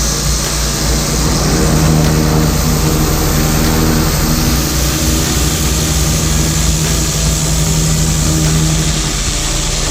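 Loncin petrol engine of a 21-litre-a-minute pressure washer running steadily, its note stronger through the middle, over a steady hiss of spray.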